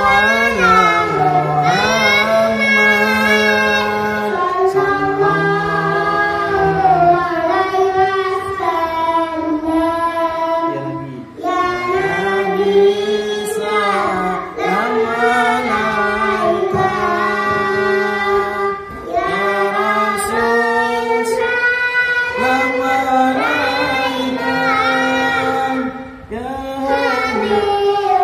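A young boy singing sholawat, the Islamic devotional song in praise of the Prophet, into a microphone, unaccompanied, with long held notes decorated by melismatic cengkok ornaments. A lower adult man's voice sings along. The phrases break off briefly for breath three times.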